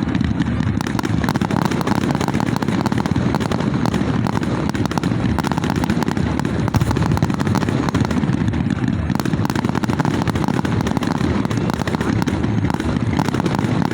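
Fireworks display going off in a dense, unbroken run of bangs and crackles, with no pause.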